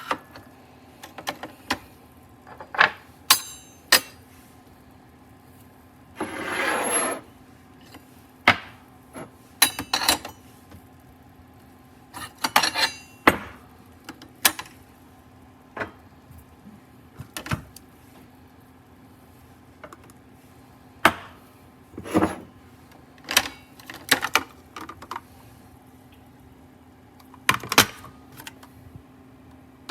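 Hard objects being handled and set down: scattered sharp clicks and knocks, with a rustling noise lasting about a second some six seconds in.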